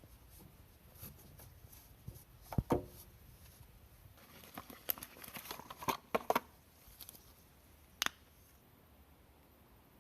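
Scattered clicks and light knocks in a small, quiet space: two louder knocks about two and a half seconds in, a run of clicks around five to six seconds, and one sharp click near eight seconds.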